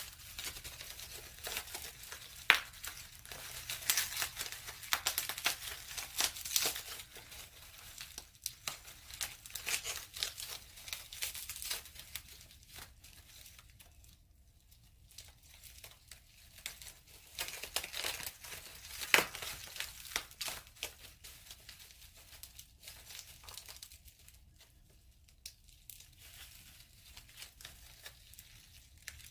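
Paper crinkling and rustling as a handmade paper notebook cover is worked loose by hand, busiest in the first half, with two sharp snaps about two and a half and nineteen seconds in.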